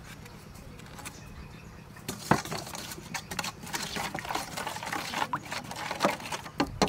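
Wooden spoon stirring and beating raw eggs with sugar and seasoning in a stainless steel mixing bowl: a quick run of clicks and scrapes against the metal that starts about two seconds in and grows busier.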